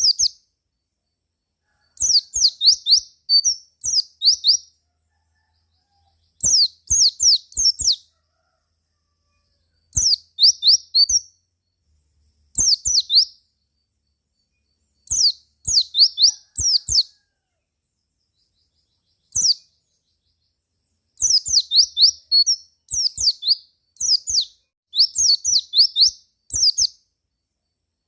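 White-eye (pleci) singing in short bursts of quick, high chirping notes. About ten phrases, each a second or two long, come with short silent gaps between them.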